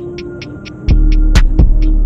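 Background music with a steady beat: quick hi-hat ticks and occasional cymbal-like crashes over a pitched backing. The deep bass drops out, then comes back in loudly about a second in.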